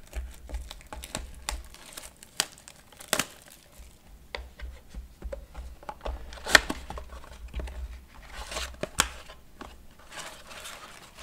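Cardboard blaster box of trading cards being handled and torn open: a run of clicks, scrapes and tearing cardboard, with one sharp snap about six and a half seconds in and two longer tearing rustles near the end.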